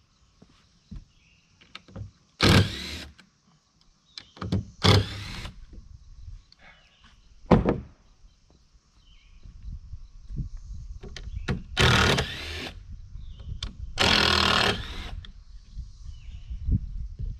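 Carpentry on a wooden floor: sharp knocks and thunks of wood on plywood, broken by four harsh noisy bursts of about half a second to a second each.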